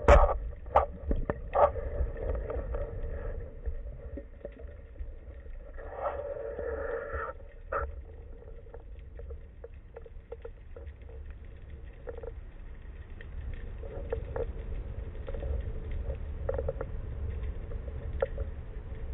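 Underwater sound through a speargun-mounted camera housing during a freedive: a low rumble of moving water with scattered clicks and knocks, the sharpest right at the start. A faint hum comes and goes.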